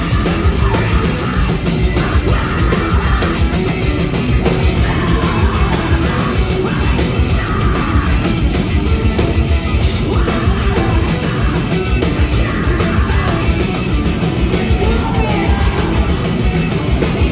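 Loud heavy rock music: fast, dense drumming and guitars with yelled vocals.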